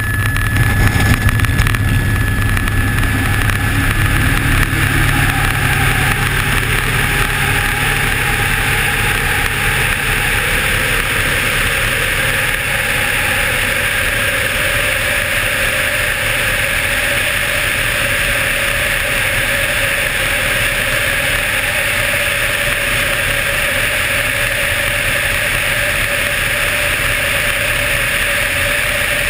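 Helicopter in flight, heard from inside the cabin: a steady, loud rotor and engine noise, with a heavier low rumble for the first few seconds before it settles.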